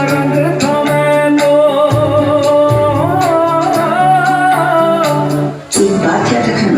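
Music with a singing voice: a held, wavering melody over steady accompaniment, breaking off briefly near the end before another passage starts.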